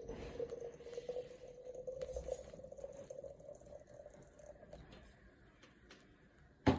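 Water heating in the lower glass bowl of a vacuum siphon coffee maker: a faint steady singing tone that rises slightly in pitch, with a soft crackle, before it fully boils. A sharp clack, the loudest sound, comes near the end.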